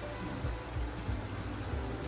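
Shrimp sizzling in garlic butter in a pan, a steady hiss under quiet background music.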